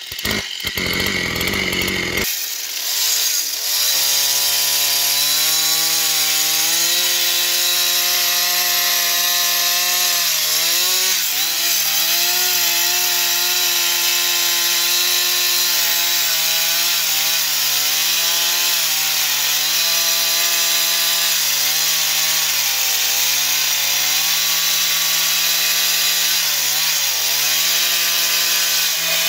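Two-stroke Husqvarna chainsaw running at full throttle with its chain cutting into a large wooden stump. The engine note holds steady, dipping briefly every few seconds as the chain bites and loads it, over the hiss of the chain chewing wood.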